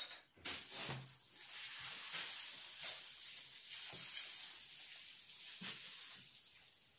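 A sharp click, then a steady hiss that lasts about five seconds and fades near the end.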